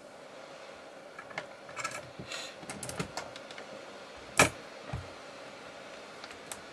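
Small clicks and light rattling from handling multimeter test probes and their leads over a bare laptop motherboard, with one sharp click about four and a half seconds in and a duller knock just after.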